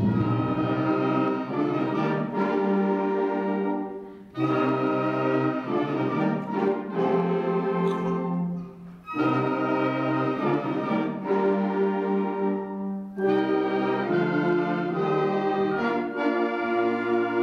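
School concert band of woodwinds and brass playing held chords in phrases, with short breaks about four and nine seconds in before the band comes back in.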